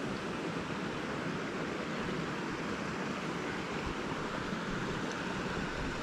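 Steady rushing of flowing creek water.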